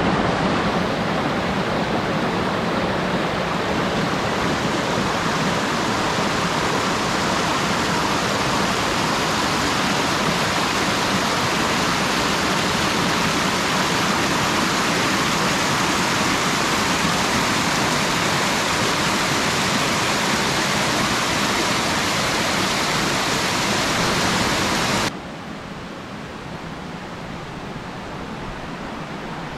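Water rushing over the rocks of a mountain stream, a steady, loud rush; about 25 s in it suddenly drops to a quieter, duller rush.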